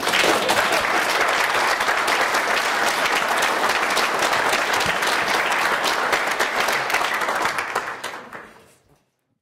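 Audience applauding, starting at once and fading away near the end.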